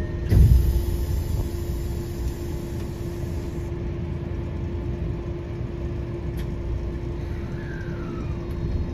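Tokyo Metro 05-series subway train running, heard from inside the car: a continuous low rumble with a steady hum, and a short thump about half a second in.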